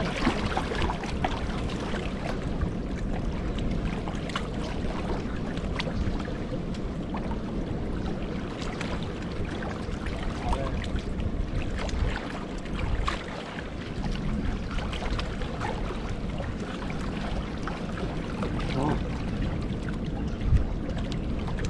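Small sea waves washing and splashing among shoreline boulders: a steady wash broken by many small splashes and clicks.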